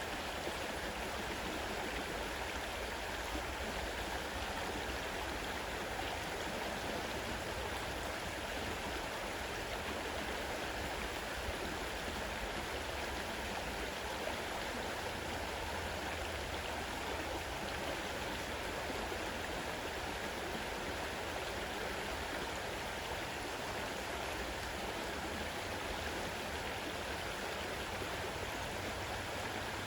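Fast-running river water, a steady, even rush.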